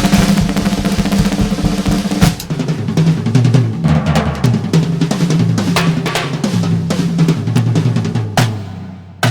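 Drum kit played fast: a dense roll of hits for about two seconds, then a driving pattern of kick, snare and rimshots over low sustained notes, fading near the end.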